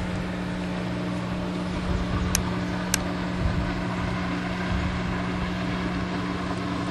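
Speedboat engine running at a steady, even pitch as the boat speeds across the water. Two short sharp clicks come about halfway through.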